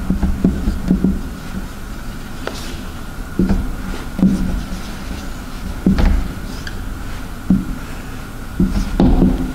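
Marker pen writing on a whiteboard: a series of short strokes and taps, the firmest about six seconds in and near the end, over a steady hum.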